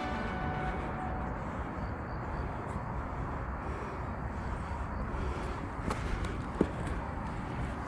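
Outdoor field-recording noise, a low, even rumble, with a few faint knocks and one sharper tap about six and a half seconds in.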